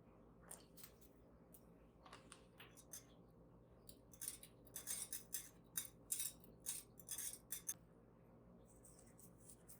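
A series of short, crisp, hissy snips or scrapes from hands working with kitchen items. They are sparse at first, then come thick and louder about four to eight seconds in.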